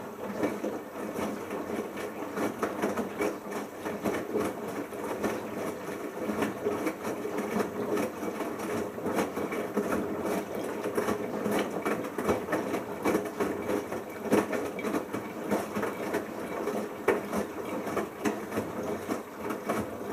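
Bosch Logixx washing machine turning its drum in the final rinse. The motor runs with a dense clatter of knocks, starting suddenly and stopping suddenly about twenty seconds later.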